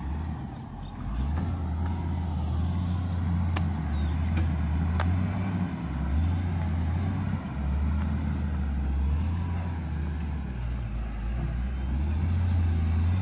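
Diesel engine of an earthmoving machine digging the pond, running steadily as a low, wavering hum, with two faint clicks near the middle.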